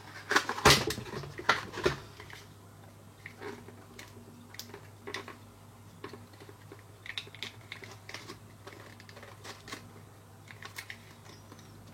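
Cardboard box and paper inserts being handled: a cluster of sharp clicks and rustles in the first two seconds, then scattered small clicks and taps, over a low steady hum.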